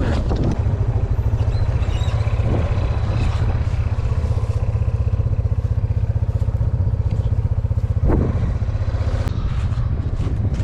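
Vehicle engine running steadily at low speed with a rapid, even low pulsing, and a brief knock about eight seconds in.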